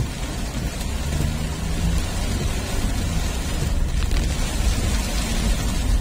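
Heavy rain drumming on a moving car's windshield and body, a steady hiss over a continuous low rumble.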